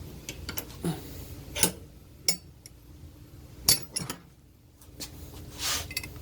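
Metal parts and tools being handled, giving several separate sharp clinks and knocks, with a short hiss near the end.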